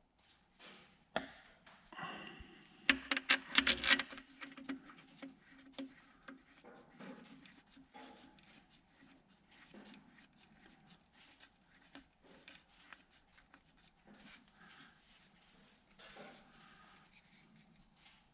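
Small metal parts clicking and rattling as they are handled. There is a quick flurry of clicks about three seconds in, then sparse light ticks, as a lubed connecting-rod cap and its nuts are fitted by hand.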